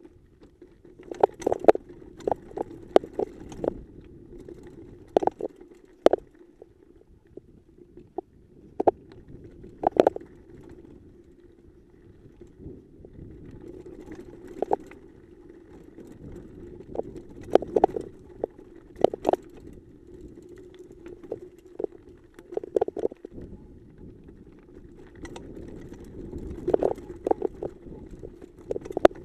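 Mountain bike rolling fast down a rocky dirt trail: a steady rumble of the tyres over dirt and gravel, broken by frequent sharp clatters and knocks as the bike jolts over rocks, some coming in quick clusters.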